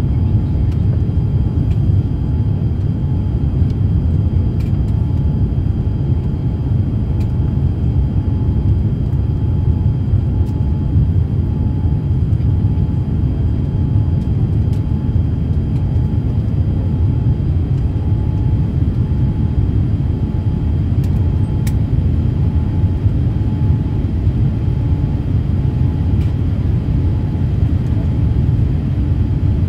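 Steady low rumble inside the cabin of a Boeing 787-8 Dreamliner climbing out after takeoff: engine and airflow noise heard from a seat over the wing.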